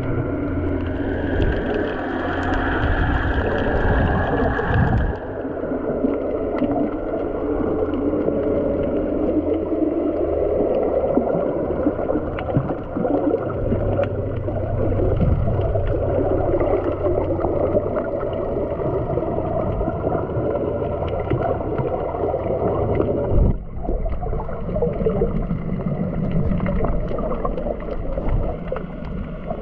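Muffled underwater noise from a camera held below the surface: a steady watery rush with low rumble and faint scattered clicks. A higher hiss rides on top for the first few seconds, and the sound briefly drops away about three-quarters of the way through.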